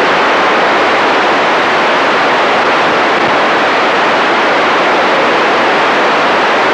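Steady loud hiss of radio noise on the sound channel of a received amateur television signal, carrying no audio behind the test card.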